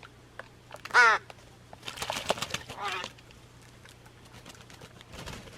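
Pet crows and magpies calling: one loud, short caw about a second in, then softer, harsher calls over the next two seconds.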